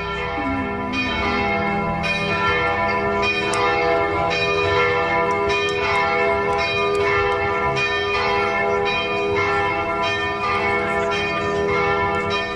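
Church bells ringing a peal, fresh strikes every half second or so over long, overlapping ringing tones.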